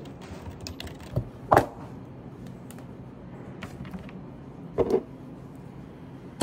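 Light computer keyboard typing, then a few louder sharp knocks of objects handled on a desk, the loudest about a second and a half in and again near five seconds.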